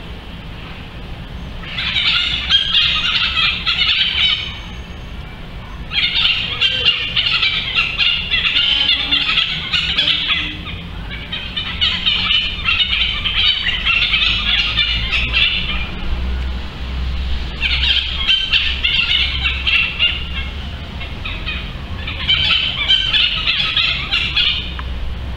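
Harsh, raspy calls of a juvenile ferruginous pygmy-owl, repeated in five bouts of two to four seconds each with short pauses between them, over a low steady rumble.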